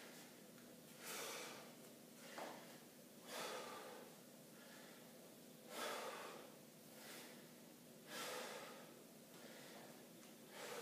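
A man's breaths during a weightlifting set: five short, noisy breaths at a regular pace of about one every two and a half seconds, over a faint steady hum.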